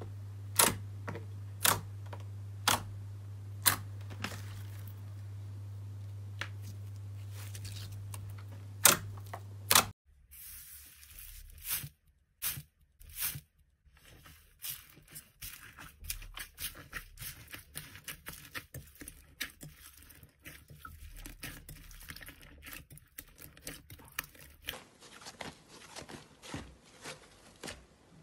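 Fingers pressing into clear gold glitter slime, with sharp pops about once a second over a steady low hum. About ten seconds in, a hand squeezes slime packed with foam beads, giving a dense run of small crunching crackles.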